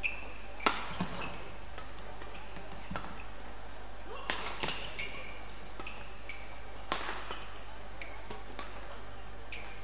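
Badminton rally: about ten sharp racket strikes on the shuttlecock at an uneven pace, the loudest about a second in, mixed with short high squeaks of court shoes on the floor.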